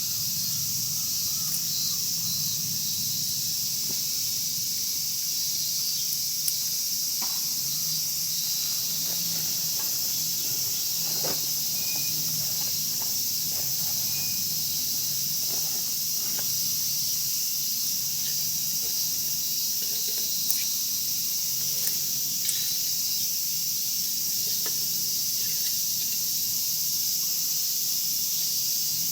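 Wood fire crackling under a Nambu cast-iron kettle, with sparse sharp pops over a steady high hiss and a low hum.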